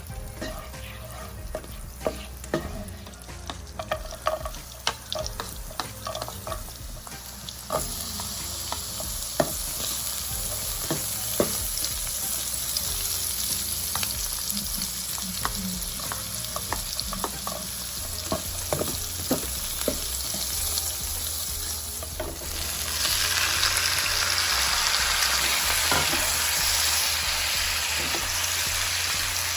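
Food frying in a pan while a utensil stirs it and clicks against the pan. There are scattered clicks at first, then a steady sizzle starts about eight seconds in and grows louder about twenty-two seconds in.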